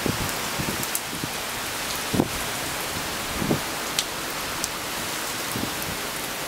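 Heavy rain falling steadily on wet paving, with a few sharper, louder taps, the loudest about two seconds in.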